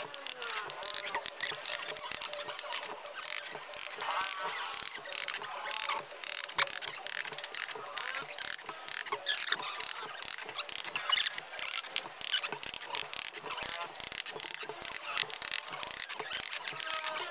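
Steel mason's trowel scraping and tapping on clay bricks and wet cement mortar while bricks are laid, a rapid, irregular run of clicks and scrapes.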